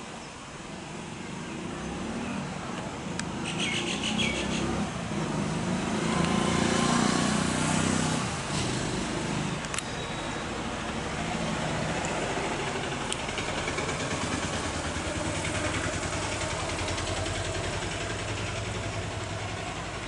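Motor vehicle engine passing nearby, growing louder to a peak about seven seconds in and then settling into a steady low rumble. A short burst of bird calls comes about three and a half seconds in.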